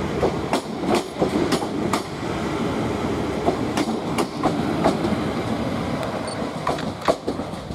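South Western Railway Class 450 Desiro electric multiple unit pulling away past at close range: a steady rumble with irregular sharp clicks of its wheels over the track, fading near the end as the rear of the train goes by.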